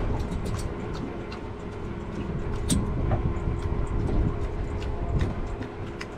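Panga's outboard motor running steadily under a low rumble of wind and water, with scattered sharp knocks and taps.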